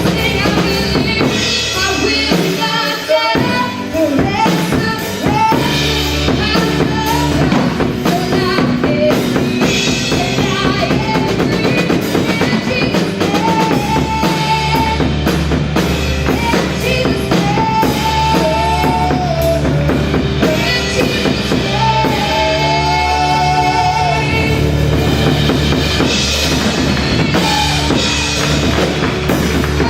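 Live gospel worship band playing: drum kit with bass drum and rimshots, bass guitar and keyboard, with some singing over it.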